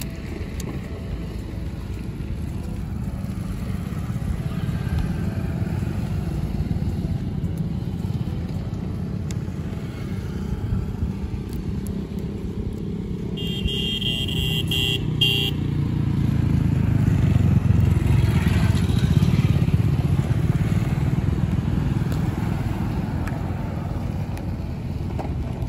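Low, steady rumble of road traffic that grows louder for several seconds about two-thirds of the way through as a vehicle passes. A high beeping tone sounds for about two seconds near the middle.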